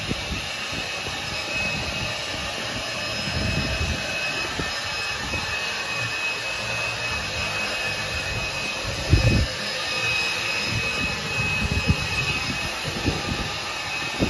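Steady hiss with a faint high whine from two charcoal spit rotisseries turning meat over the coals, with low thumps now and then, the loudest about nine seconds in.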